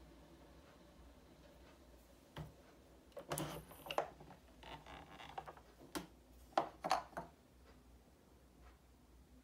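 A few sharp plastic clicks and knocks from a Philips Senseo Latte Duo pod coffee machine as its lid is unlatched and lifted and its pod holder is pulled out. There is a cluster of clicks in the middle and a couple more near the end.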